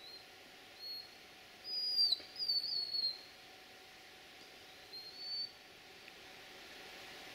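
Several short, high, thin whistle-like animal calls over a faint steady hiss. The loudest pair comes about two seconds in, each call holding its pitch and then falling away at the end, and a softer one follows near five seconds.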